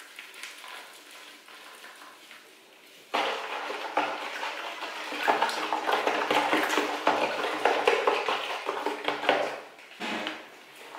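Liquid sloshing and splashing in a plastic basin with small plastic knocks as a wig is worked into a bleach bath. It starts suddenly about three seconds in and stops near the end.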